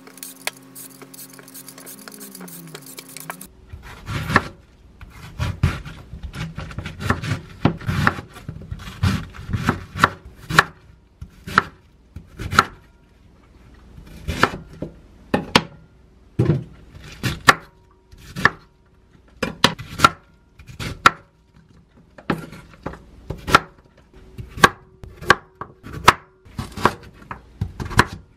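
A vegetable peeler scrapes the skin off a Korean radish for the first few seconds. Then a chef's knife chops red cabbage and carrot on a wooden cutting board: a long, uneven run of knife strikes on the board, about one to two a second.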